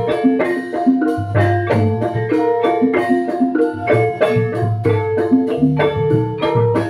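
Javanese gamelan ensemble in pelog tuning playing a gending: bronze metallophones and gong-chimes ringing out a dense, even melody, with low kendang drum strokes underneath.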